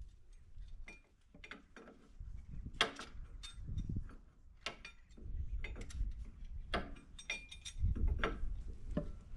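Wrenches clicking and clinking on the metal fittings of a forklift's hydraulic cylinder line as they are loosened, a string of sharp irregular metal taps, some with a short ring.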